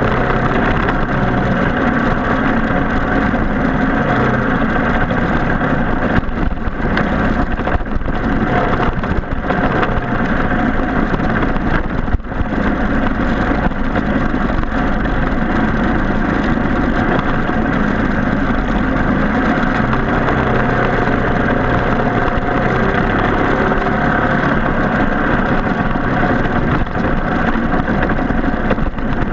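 Racing kart's Briggs & Stratton Animal single-cylinder four-stroke engine running continuously and loud, its note shifting a little from time to time.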